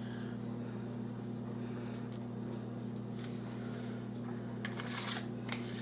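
Steady low electrical hum in the kitchen, with a short rattling rustle of handling noise about three seconds in and a louder one just before five seconds.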